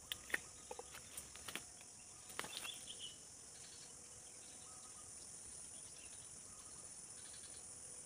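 Steady high-pitched drone of insects in dry scrub. About a dozen sharp clicks and short rustles of dry twigs being handled fall in the first three seconds.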